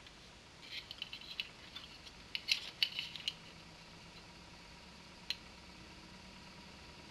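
A 12 cm PC case fan running quietly with a faint steady whine, and a low hum comes in partway through. Over it, a quick cluster of light clicks and rattles in the first half, and one more click a few seconds later.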